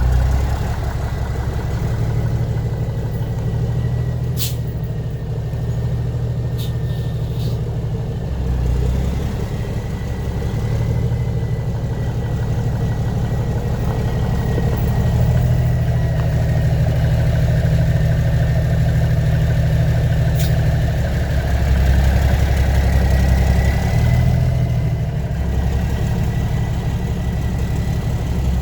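Diesel engine of a 1985 Ford CL9000 cab-over semi idling steadily, its low rumble swelling and easing a little, with a few sharp clicks.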